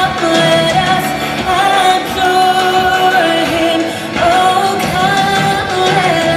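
A song with a voice singing held, gliding notes over instrumental backing.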